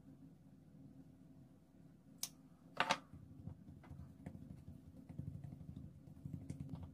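Faint, soft sounds of a hand pressing and rubbing seasoning into raw beef steaks on a plate, over a steady low hum. A sharp click and a short, louder clatter come just before the rubbing starts, about two to three seconds in.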